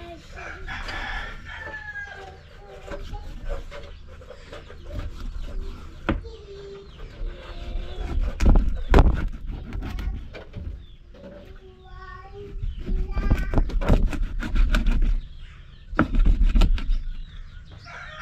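Chickens clucking and a rooster crowing, with a few heavy knife thuds on a cutting board as a fish is cut into pieces.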